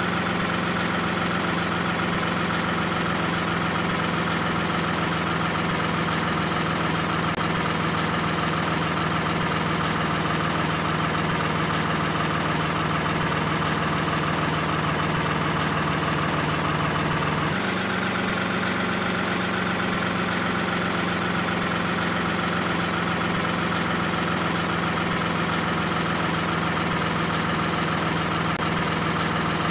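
Steady engine-like idling drone, unbroken and even in level, with a small sudden shift in its tone about two-thirds of the way through.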